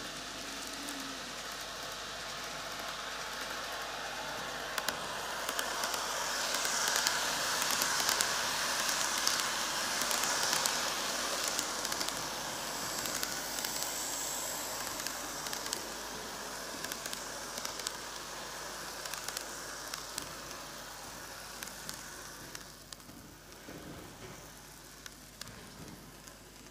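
N-gauge model trains, a Tokyu 5000 series and a 2020 series, running on TOMIX superelevated track: a steady whirring rush of small motors and wheels on the rails, peppered with light rapid clicks. It swells as a train passes close, about six to eleven seconds in, and fades near the end.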